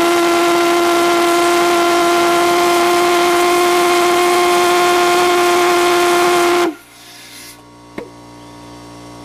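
Valveless propane pulsejet running with a loud, steady, buzzing drone, then cutting out suddenly about two-thirds of the way in. The engine quitting is typical of this prototype's trouble running on, which the builder traced to too little propane fuel pressure through its small fuel tube.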